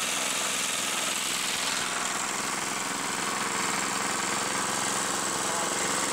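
Small petrol engine driving a belt-driven grinding mill (chakki) that is grinding chickpeas into sattu flour, running steadily at an even level.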